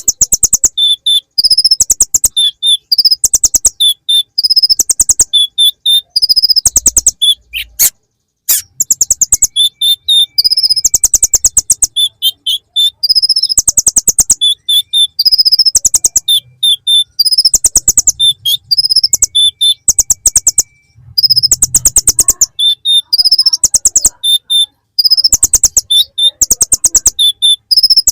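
A konin (kolibri ninja sunbird) singing a song full of ciblek (bar-winged prinia) phrases. Rapid high buzzy trills repeat about once a second, with short sharp chirps between them.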